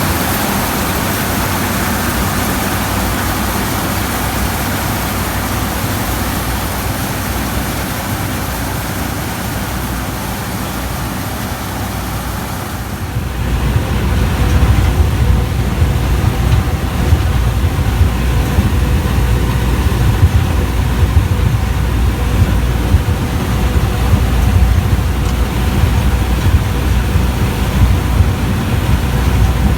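New Holland TX34 combine harvester running as it harvests corn: a steady mechanical noise with some held tones. About halfway through, a heavy low rumble comes in and the sound gets louder.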